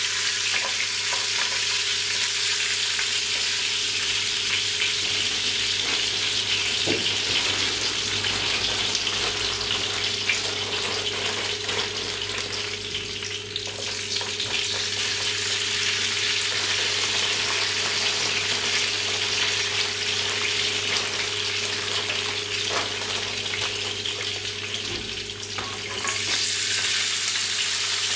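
Hot oil sizzling steadily in a frying pan as raw potato strips are dropped in to fry as chips. The sizzle dips briefly near the end, then comes back stronger, over a low steady hum.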